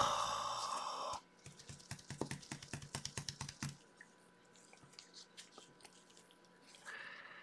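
A quick run of small clicks and light rustles for about two and a half seconds, then near quiet.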